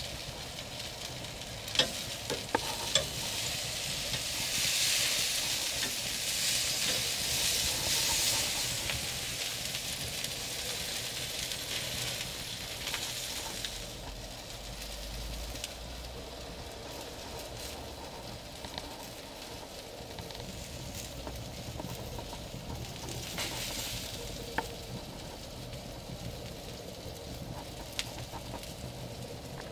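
Food sizzling on a grill grate over an open wood fire, a steady hiss that swells a few seconds in, with the burning wood giving occasional sharp crackles and pops.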